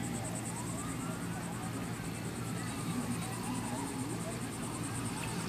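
Boat motor running slowly with a steady low hum, under a high, rapidly pulsing buzz.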